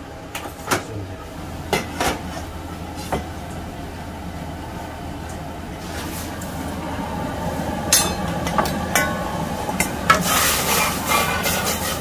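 Kitchen clatter: irregular knocks and clinks of utensils and dishes over a steady hiss, getting busier about eight seconds in and again near the end.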